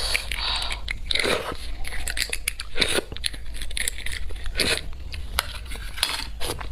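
Close-miked eating sounds: biting and chewing beef bone marrow from the bone, with irregular wet crunches and clicks.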